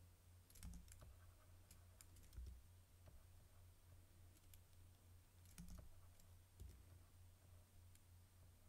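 Near silence: room tone with a steady low hum, broken by a few faint, scattered clicks.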